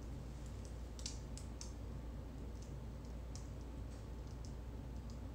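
Faint, irregular small clicks, a few sharper ones about a second in, over a steady low hum of room noise.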